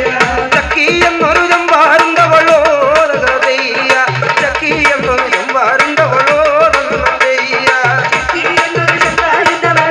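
Live Kerala tribal folk song, amplified: singing into a microphone over a hand drum beating a steady rhythm.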